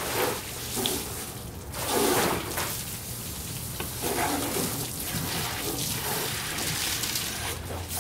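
Water running from a garden hose at an outdoor spigot, spraying and splashing onto concrete.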